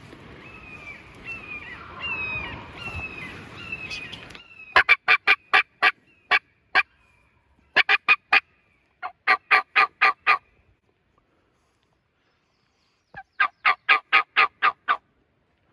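Wild turkey yelping: four runs of short, sharp yelps, each run of about four to nine notes at roughly four a second, with pauses between runs. Before the first run, faint falling bird notes can be heard.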